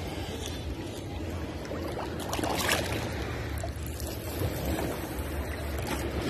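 Shallow sea water sloshing and splashing around wading legs and a long-handled metal sand scoop dug into the seabed, over a low steady rumble. The loudest splashes come about two and a half seconds in.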